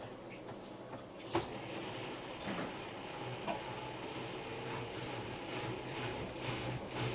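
Samsung Eco Bubble washing machine running a wash cycle: a low steady hum with water moving in the drum, and a few brief knocks about a second apart.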